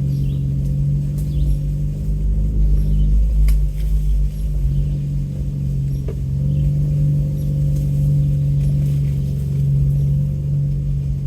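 A 4x4's engine and drivetrain droning steadily at low speed on a rough dirt road, heard from inside the cab, with a deep rumble underneath and a couple of light knocks.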